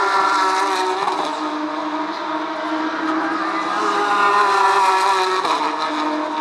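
Porsche 911 GT3 Cup race cars' flat-six engines running hard on track. The engine note drops sharply about a second in, climbs again, then drops once more near the end.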